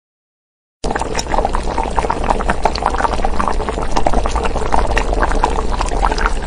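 Pot of luosifen hotpot broth at a hard boil: dense bubbling and popping that starts suddenly about a second in, after a moment of silence.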